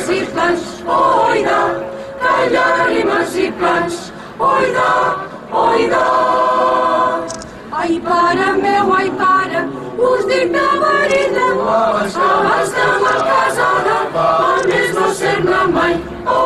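Mixed choir singing a cappella, in phrases with short breaks and a long held chord about six seconds in.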